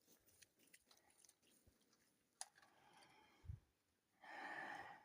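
Near silence, with faint scattered clicks and a brief rustle near the end.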